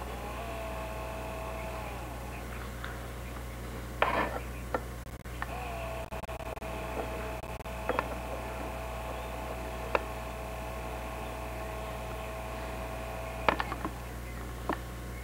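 Camcorder power-zoom motor whining on the built-in microphone: a steady whine that rises briefly in pitch as it starts, once briefly near the start and again for about eight seconds, ending with a click. A few sharp clicks and a steady low electrical hum sit underneath.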